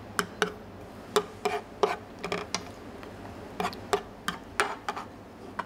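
A metal ladle clinking and knocking against a nonstick frying pan while it is worked through braised spare ribs in sauce: a dozen or so sharp, irregular clicks.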